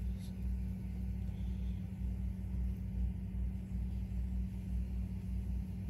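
Steady low hum and rumble with no speech.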